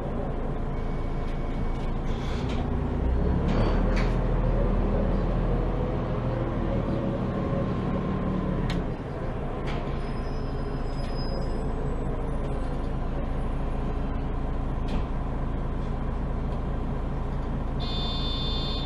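Cabin sound of a MAN Lion's City G articulated bus on the move: a steady low drone of engine and drivetrain, which grows into a heavier rumble with a rising and falling whine from about three seconds in and eases off about nine seconds in. A short electronic tone sounds near the end.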